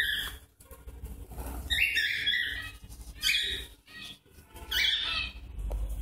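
Cockatiels squawking in a cage: four harsh calls, about a second and a half apart, agitated squawks from a squabble over a nest box.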